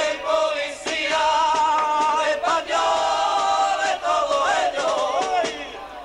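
A carnival murga, a group of men, singing together through a microphone, with long held, wavering notes and a few sharp knocks among them.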